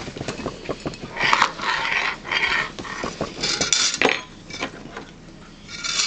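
Tableware being cleared by hand: a bowl with a spoon in it and a plate picked up off a table, with scattered clinks and knocks of the spoon and dishes and a few louder stretches of scraping and rustling.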